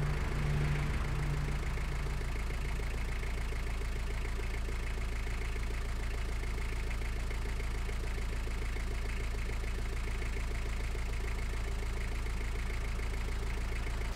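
Lada Niva engine idling steadily.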